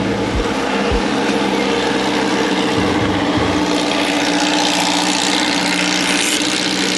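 Vehicle engine running at a steady speed under an even rush of road and wind noise, with a few low thumps in the first half.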